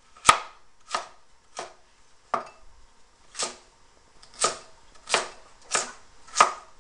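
Chinese cleaver chopping a carrot into small pieces on a wooden cutting board: about nine separate chops, roughly one every two-thirds of a second.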